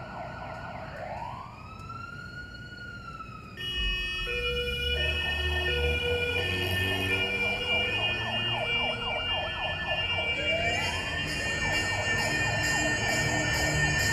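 A siren wailing in one slow rise and fall. From about four seconds in, a louder, denser mix of low rumble, steady tones and rapid pulsing joins it, with another rising siren sweep near ten seconds. This is street noise the deaf narrator hears only as a confusing blur through his hearing aid.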